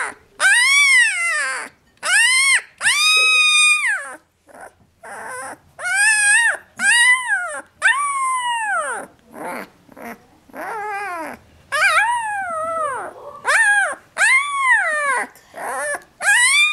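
A 12-day-old Alaskan Malamute/Siberian Husky mix puppy howling in a long string of high wails, each rising and then falling in pitch, with a few shorter, fainter whimpers in between. She is protesting at being put back in her basket.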